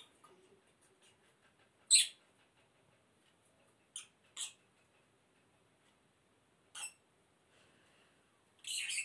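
Lovebird giving short shrill chirps, five in all: a loud one about two seconds in, a quick pair around four seconds, another near seven seconds, and a longer one at the end.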